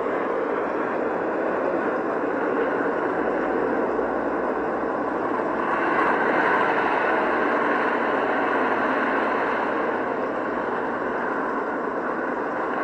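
Steady rushing noise with no clear tone, swelling a little about six seconds in.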